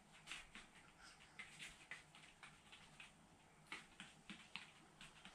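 Near silence with faint, irregular light clicks and ticks, a few a second, the clearest a little under four seconds in.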